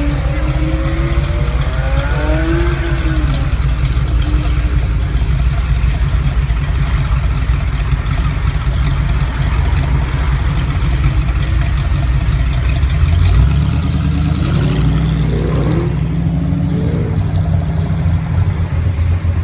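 Car engine running loud and steady, its note changing about two-thirds of the way through.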